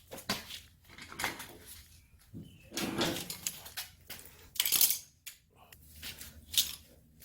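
Rustling and light clattering of gear being handled as safety equipment is put on, with a brief louder rustle about two-thirds of the way through.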